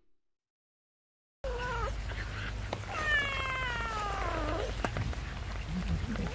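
Silence for about the first second and a half, then a cat meowing: a short call, then one long meow that falls in pitch.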